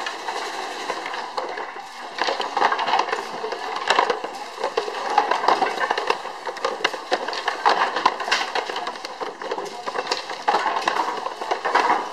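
Wooden foot-treadle handloom clattering: a dense, irregular run of sharp wooden knocks and clacks as the treadles are worked.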